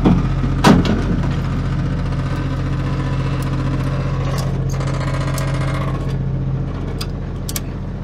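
Peterbilt 379's diesel engine idling with a steady drone, and a metal rattle from the ladder stowed on the headache rack behind the cab, heard as a few sharp clicks.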